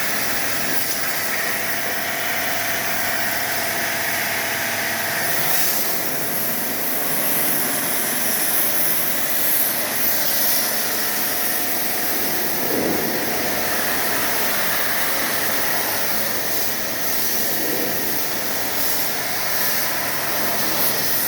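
Pressure washer pump running, its water jet spraying with a steady hiss.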